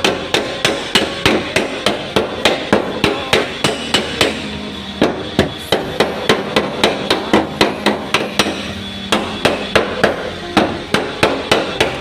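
Rapid hammering on a car's sheet-metal body panel while a dent is beaten out: quick, sharp metallic strikes at about four a second, easing off briefly twice.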